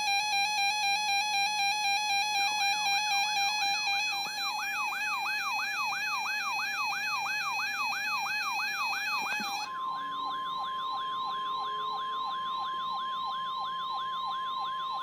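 Weather radio alert alarms: a rapid pulsing electronic beep, joined about two and a half seconds in by a fast warbling siren tone. About ten seconds in, the beeping gives way to the steady NOAA Weather Radio 1050 Hz warning tone under the continuing warble, the signal that an emergency alert follows.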